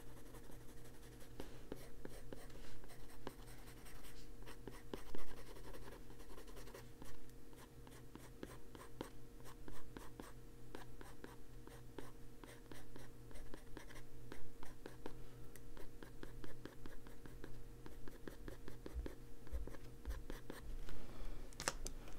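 Derwent Drawing Pencil scratching on paper in many quick, irregular strokes, with a faint steady hum underneath.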